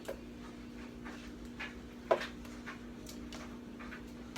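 Kitchen items being handled on a counter: scattered light clicks and knocks, with one sharper clink about two seconds in, over a steady low hum.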